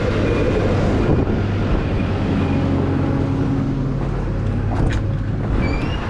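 Diesel engine of a farm loader running steadily, with a held hum joining in about two seconds in and dropping out about two seconds later.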